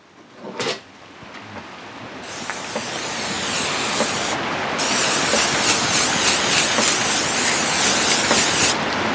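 Aerosol can of vegetable cooking oil spraying in long hissing sprays, broken briefly near halfway.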